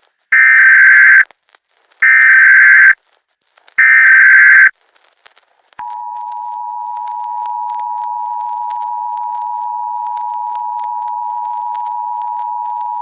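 Emergency Alert System tones: three loud, roughly one-second bursts of SAME header data, then, about six seconds in, the steady two-tone EAS attention signal begins and holds.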